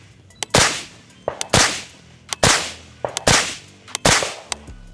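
Five suppressed 9mm shots from an AK-9 carbine fired through a JK Armament solvent trap converted to a suppressor, in a four-baffle configuration. The shots are fired in slow, even succession, roughly one a second, each sharp with a short decaying tail.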